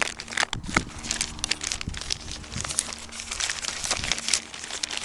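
Packaging crinkling and rustling as a parcel is handled and unwrapped: dense, irregular crackles throughout.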